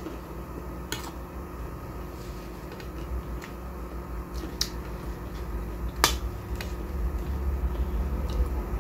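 Scattered sharp clicks of a metal spoon against a plate while eating, about seven in all at irregular intervals, the loudest about six seconds in, over a low steady hum.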